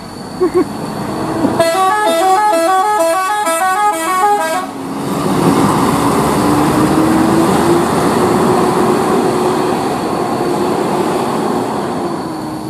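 Mercedes-Benz OH 1526 coach's multi-tone 'telolet' musical horn playing a quick stepping melody for about three seconds. Then its diesel engine runs steadily under load as the bus pulls away round the bend.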